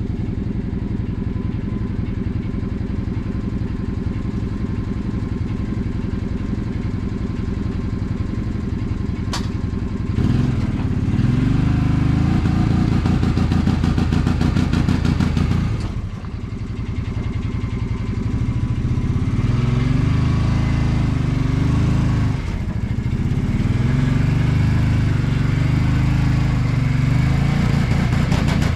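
Vehicle engine idling, then revving up in three spells of a few seconds each, starting about a third of the way in, as it tows a sawmill trailer slowly over rutted, frozen ground. There is a sharp click just before the first spell.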